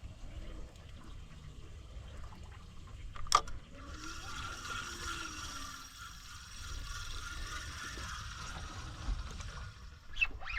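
A fishing reel being cranked: a sharp click about three seconds in, then a steady whirring retrieve for about five seconds, over a low rumble of wind and boat noise.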